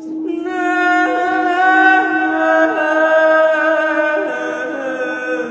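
A woman singing long, wavering held notes over the steady hum of a metal singing bowl being rubbed around its rim with a wooden stick. The voice comes in about a third of a second in, while the bowl's single low tone holds unbroken underneath.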